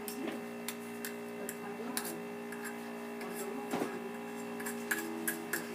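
Homemade slime being mixed by hand, giving scattered small sticky clicks and soft squishes over a steady electrical hum.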